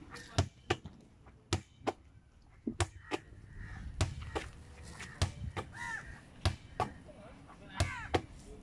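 A ball volleyed by hand against a wall: sharp smacks, mostly in pairs about a third of a second apart, as the hands strike the ball and it hits the wall, repeating roughly once a second.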